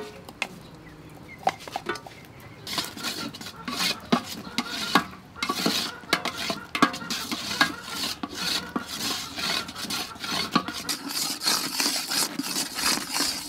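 Metal spatula scraping and clinking against an aluminium pot while stirring palm sugar melting into a bubbling syrup, with a light sizzle. A few isolated clicks at first, then steady busy stirring from about two and a half seconds in.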